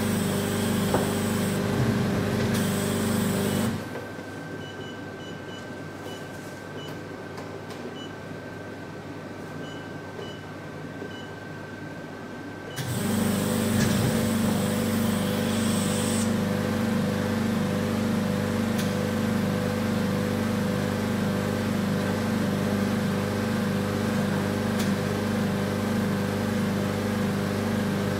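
Vacuum pump of an RF vacuum roller body-contouring machine running with a steady hum and a regular pulsing, the suction cycling on and off. It stops about four seconds in, leaving only a faint high tone, and starts again some nine seconds later.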